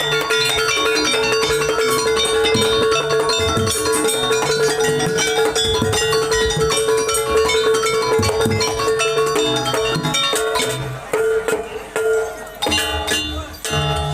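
Music: many short pitched notes over a held tone, breaking into short stop-start pieces in the last few seconds.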